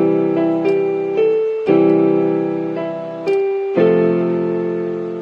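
Background piano music: soft chords struck about every two seconds, each fading away, with single melody notes between them.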